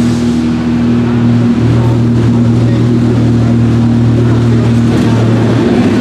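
The Alfa Romeo MiTo RX Super1600 rallycross car's naturally aspirated four-cylinder race engine running steadily while the car stands still, the note holding at an even pitch.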